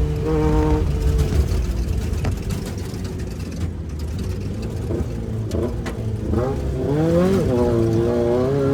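Off-road race vehicle engine running, its pitch holding steady briefly, then revving up and down over the last couple of seconds.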